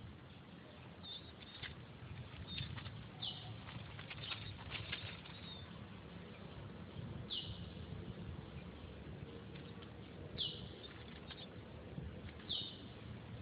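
Four short, high chirps, each falling in pitch, a few seconds apart, from a small animal, with light rustling and ticks through the first half over a faint outdoor background.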